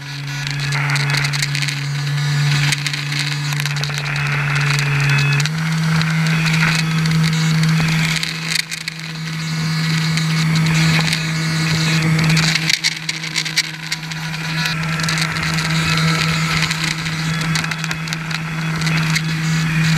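Electric motor and air propeller of a radio-controlled airboat running at a steady pitch, which steps up slightly about five seconds in, over a constant rushing hiss.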